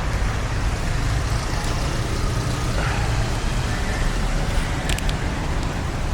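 Street traffic on rain-wet roads: a steady low rumble of passing vehicles under an even hiss, with a few short clicks about five seconds in.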